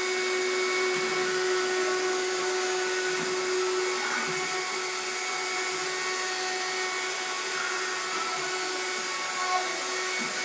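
Vacuum cleaner running steadily: a constant motor whine over airflow noise.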